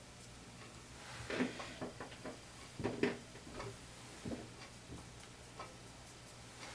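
A few soft knocks and rustles of handling, in short clusters about a second, three seconds and four seconds in, over a faint steady low hum.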